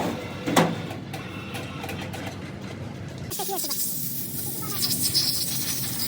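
Workshop noise: a sharp metallic knock just over half a second in, then a steady hiss that starts about halfway through.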